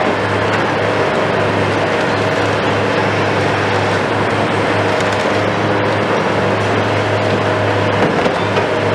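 Hitachi KMC 520 BTV long-reach demolition excavator running steadily while its demolition tool tears into the concrete building, with rubble crunching and falling throughout. A couple of slightly louder knocks come near the end.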